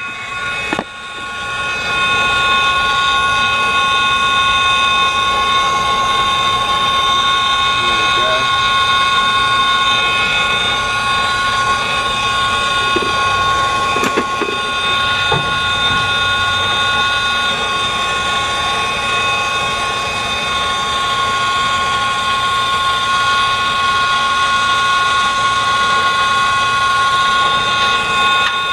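Brazing torch burning steadily on a compressor's copper refrigerant line: a continuous hiss and rush of flame with a steady high whine over it, dipping briefly about a second in.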